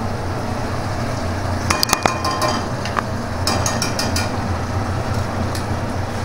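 A metal spoon or spatula clinking against a cooking pan as the spice mixture is stirred, in two short clusters of clinks about two seconds in and again around three and a half to four seconds in, over a steady low hum.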